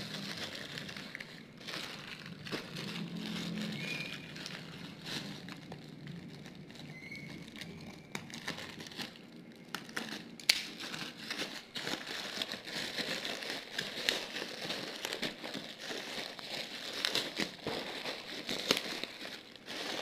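Plastic packaging around coiled charging cables crinkling and rustling as it is handled, with scattered small clicks and crackles.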